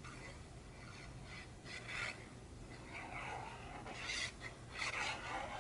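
Thick paper sheets handled at a work table, rubbing and scraping against each other and the surface in a few short rasping strokes.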